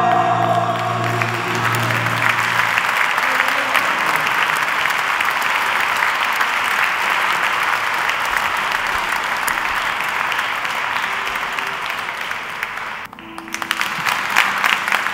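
Audience applauding in a large church. The final held chord of the gospel singers and band dies away in the first couple of seconds. The applause dips briefly about thirteen seconds in, then picks up again with sharper, separate claps.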